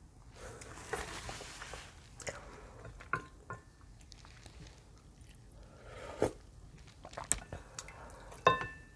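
Close-miked eating of spicy ramen soup: wet chewing and mouth smacks with scattered clicks, and a hiss of slurping about a second in. A short ringing clink near the end.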